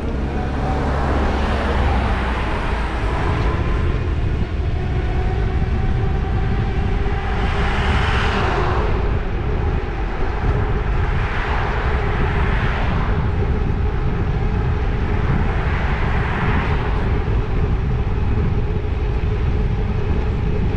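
Wind rumbling on the microphone of a moving e-bike, under a steady whine from the bike's motor. Four broad whooshes swell and fade, passing vehicles, about 2, 8, 12 and 16 seconds in.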